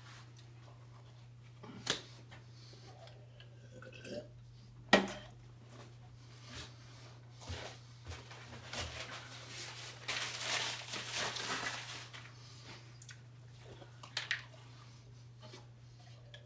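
Eating and handling noises from pizza being taken from a cardboard box: scattered small knocks and clicks, one sharp knock about five seconds in, and a stretch of rustling from about ten to twelve seconds. A steady low hum runs underneath.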